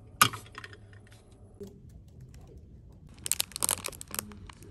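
A single sharp clink just after the start, then, about three seconds in, a clear plastic bakery bag crinkling in a hand for about a second.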